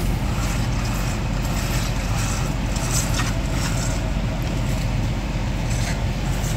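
Diesel engine of the concrete pumping equipment running steadily, a constant low rumble, with a few faint knocks.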